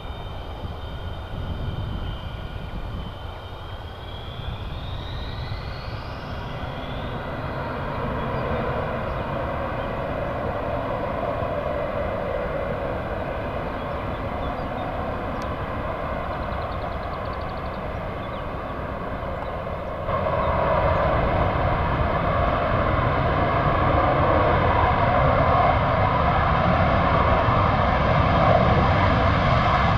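Military jet engine noise: a steady rush with a high whine over it; the whine rises about five seconds in, and the noise abruptly gets louder about twenty seconds in.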